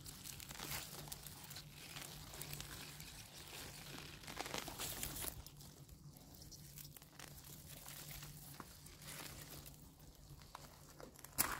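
Spring onions being pulled up by hand from garden soil: faint, irregular rustling and crinkling of the stems and leaves, with roots tearing out of the earth. A sharper crackle comes near the end.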